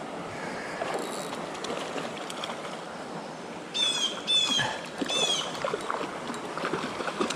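Creek water rushing steadily, with a bird calling three times about four seconds in, each call a quick downward sweep that settles on a short high note.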